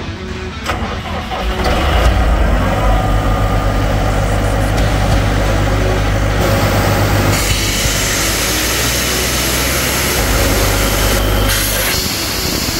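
2016 Atlas Copco XAVS 375 portable air compressor's diesel engine starting up about two seconds in and then running steadily, with a shift in its sound around seven seconds in.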